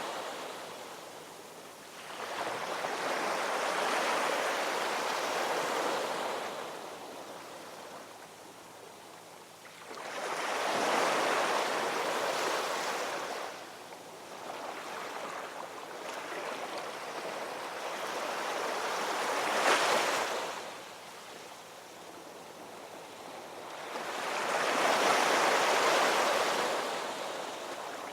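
Ocean waves breaking and washing up the shore, in slow surges that swell and fade every several seconds, with one sharper crash about twenty seconds in.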